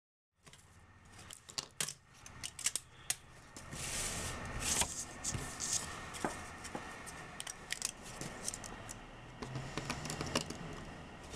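Hands working 3D-printed plastic pieces, snapping and peeling away support material: a run of small plastic clicks and snaps with short scraping rasps, busiest about four to six seconds in.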